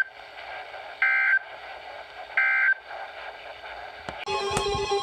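NOAA Weather Radio EAS/SAME end-of-message data bursts: short buzzing bursts of digital tones about 1.3 s apart over radio hiss, two full ones following the tail of a first at the very start, marking the end of the alert. About four seconds in there is a click, and then music starts.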